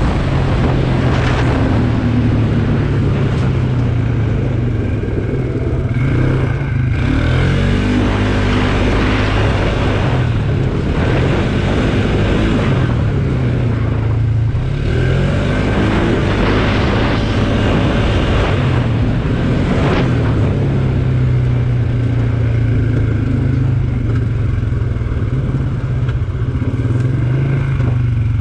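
Polaris ATV engine running hard along a dirt trail, its note dropping and climbing back several times as the rider eases off and gets back on the throttle, over a steady rush of wind and trail noise.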